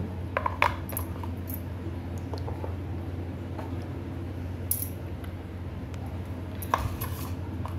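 Large plastic building blocks clicking and tapping as they are set down and pressed against one another on the floor: a few separate sharp clicks, two about half a second in and more near the end, over a steady low hum.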